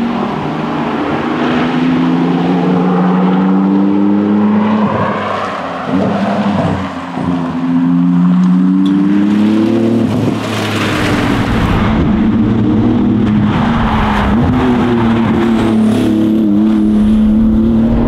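Porsche 911 GT2 RS twin-turbo flat-six engine running hard under load, its revs rising and falling through the gears, with a brief lift off the throttle about six to seven seconds in.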